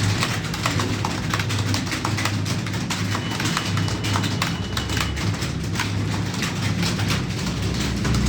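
Computer keyboard typing: rapid, irregular keystroke clicks, dense and continuous, over a steady low hum.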